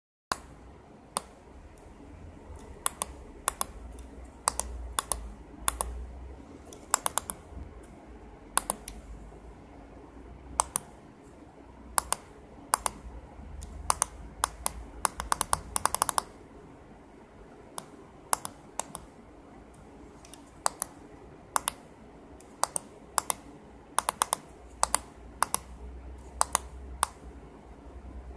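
Small tactile push buttons on a breadboard clicking under a finger, in irregular single and paired clicks, with a quick run of presses about halfway through.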